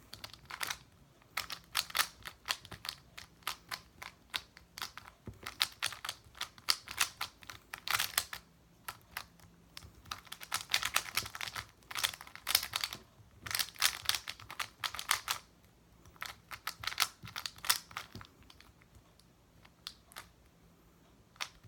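Speedcube being turned fast during a timed solve: rapid clusters of plastic clicks and clacks from the layers, with short pauses between bursts. The cube's lube is set up heavy, which the cuber finds gummy and slow.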